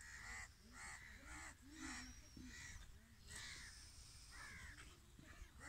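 Crows cawing over and over, a short harsh caw about twice a second, with fainter low sounds underneath.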